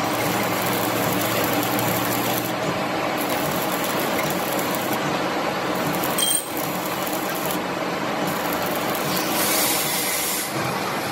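Steady running noise of heavy factory machinery, with a single sharp knock about six seconds in and a brief hiss near the end.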